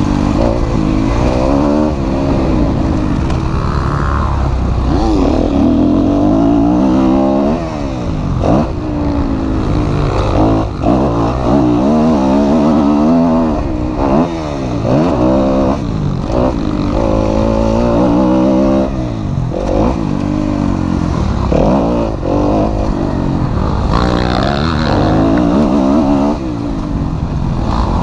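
Kawasaki KX250F single-cylinder four-stroke motocross engine revving hard and falling back again and again, the rider opening and closing the throttle and shifting through the gears, over a steady low rush.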